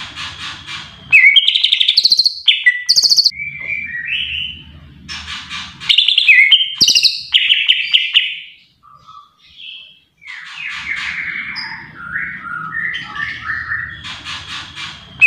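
Male green leafbird (cucak ijo) singing a loud, varied song of rapid chattering and whistled notes, in bursts, with a pause of about two seconds in the middle.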